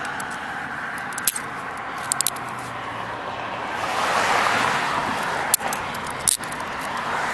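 Steady roadside traffic noise, with a vehicle swelling past about four seconds in. Over it come sharp metallic clicks and a brief jingle from handcuffs being readied and put on: one click about a second in, a quick rattle near two seconds, and two more clicks near the end.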